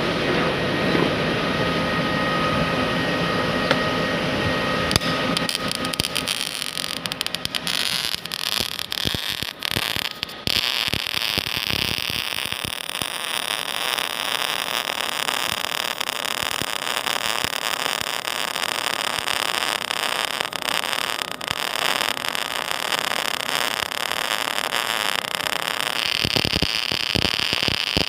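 MIG welding arc giving a steady hissing crackle as a bead is run. It breaks off and restarts several times in the first ten seconds, then burns continuously.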